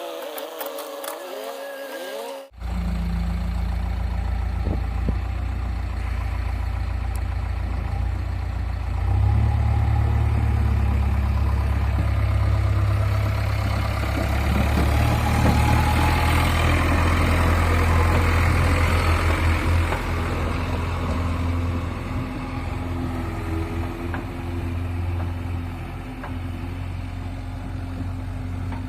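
Diesel engine of a backhoe loader at work, a steady low drone that grows louder for a stretch in the middle as the machine works. It comes in after a sharp cut from a short, different sound with gliding tones in the first two seconds or so.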